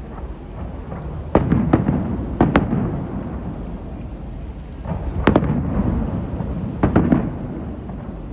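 Aerial fireworks bursting: a run of sharp bangs, about five spread unevenly across the stretch, each trailing off into a long rumbling echo.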